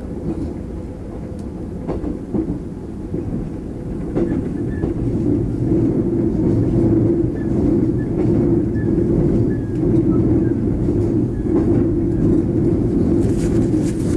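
Taiwan Railway EMU400 electric multiple unit running, heard from inside the car: a steady low rumble of wheels on rail with a few clicks, growing louder about four seconds in.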